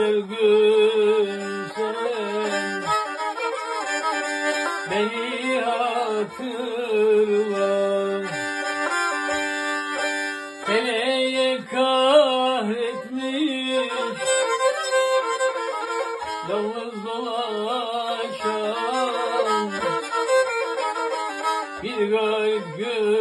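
Black Sea kemençe bowed continuously through an ornamented folk tune, with a man's voice singing along in places.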